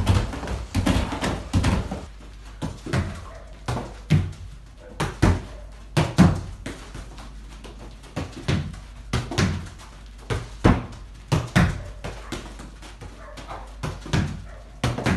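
For the first couple of seconds, rapid trainer footfalls on a foam plyo box. After that, a football is struck against a wall and trapped again and again, giving irregular sharp thuds of boot on ball and ball on wall, roughly one every second, echoing in a small room.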